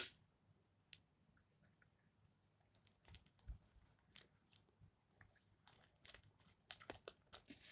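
Faint scattered crinkles and small clicks of sticky tape and paper being handled as a second layer of tape goes onto a paper squishy, growing busier near the end.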